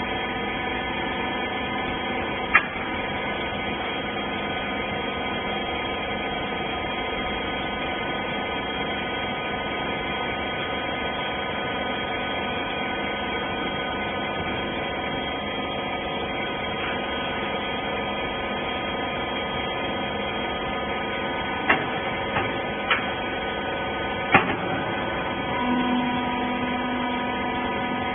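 Twin-ram rag baler's hydraulic power unit running with a steady hum. A few sharp knocks sound, once early and three times near the end, and a low steady tone joins about three-quarters of the way through.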